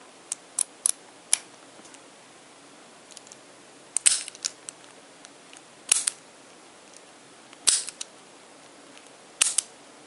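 Brass Best interchangeable-core padlock being worked with its key: a few light clicks as the key slides in, then four sharp metallic clacks about two seconds apart as the lock is unlocked and the shackle is opened and snapped shut.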